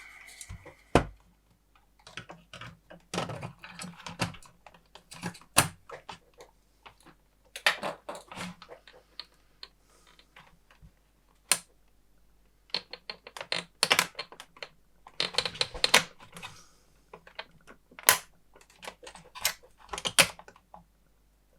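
Irregular clicks, taps and short rattles of parts being handled and fitted as a Tektronix TDS 210 oscilloscope is reassembled, with a few sharper single clicks standing out among them.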